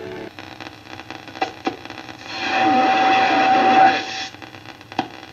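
Hammarlund HQ-100 tube shortwave receiver being tuned across the band, heard through its speaker: static hiss and crackles, with a louder rush of noise and a steady whistling tone in the middle.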